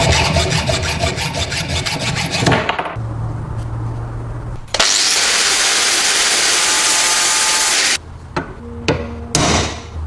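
Hand-tool work on an old vegetable slicer: fast, evenly repeated scraping strokes, then a steady loud hissing noise lasting about three seconds, and a few sharp clicks near the end.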